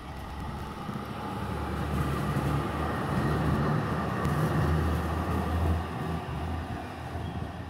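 Vintage tram passing on street rails: a low rumble with a hum that builds over the first couple of seconds, is strongest around the middle, and fades near the end.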